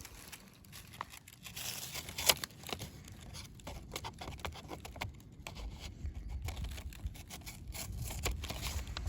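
Rustling, crinkling handling noises with many scattered sharp clicks and one louder snap a little over two seconds in; a low rumble builds up in the second half.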